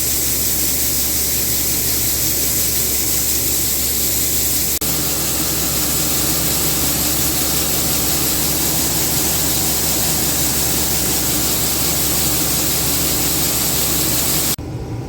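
Combine harvester running while picking corn: a steady low engine hum under a loud, even hiss. Near the end the hiss drops away, leaving the lower hum.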